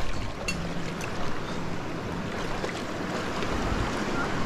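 Steady rushing of river water over a shallow riffle, with a few faint knocks.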